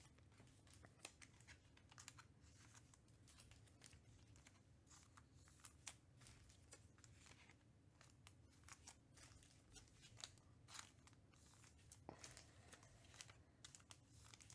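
Faint, scattered crinkling and light clicks of trading-card packs and cards being handled and opened, over a low room hum.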